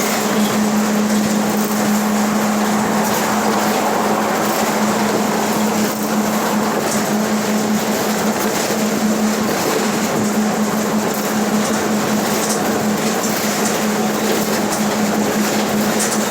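Mercedes-Benz OF 1721 bus running at a steady speed: a constant droning tone from the rear differential over road and drivetrain noise. The differential is growling, the noise its owner is recording it for.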